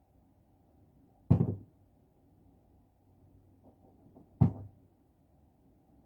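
Two sharp knocks on a skylight, about three seconds apart, each dying away quickly, with faint scratching just before the second: wind-blown tree branches banging and scraping against it.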